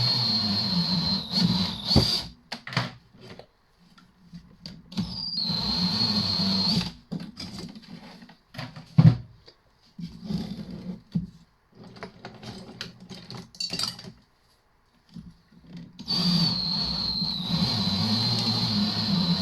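Cordless drill driving a copper wire stripper, running in short spells with a high whine, stopping and restarting in between with brief bursts and knocks as wire is fed through. The drill is struggling to push the wire through the stripper.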